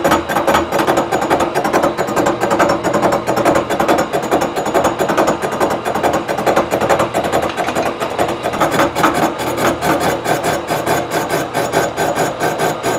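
A 3-inch, seven-insert face mill on a milling machine cutting across the flange face of a cast-iron Ford V10 exhaust manifold, taking a 30-thousandths facing pass. It makes a steady, fast rasping as the inserts strike the metal in quick succession.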